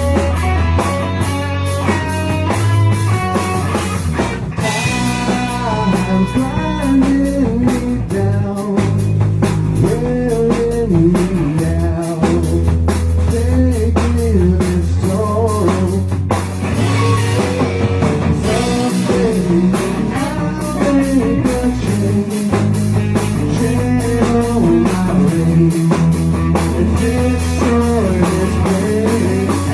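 A rock band playing with electric guitar, bass guitar and drum kit, the guitar carrying a wandering melodic line over a steady beat.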